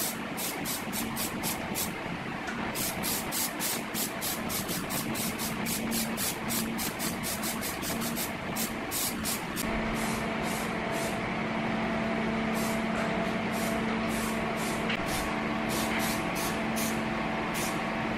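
Paint spraying: short, rapid hissing bursts of spray, about three to four a second, as green paint goes onto a motor housing. From about ten seconds in a steady mechanical hum joins underneath.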